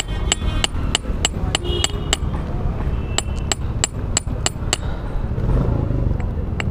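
A small hand hammer tapping steadily, about three sharp clinking blows a second.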